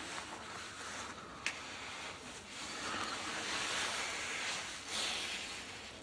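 Close breathing and the rustle of clothing as two people kiss and hug, with a single small click about one and a half seconds in.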